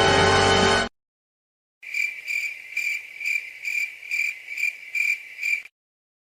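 Cricket chirping, a high steady trill pulsing about three times a second for about four seconds, starting about two seconds in; a music clip cuts off just before a brief silence at the start.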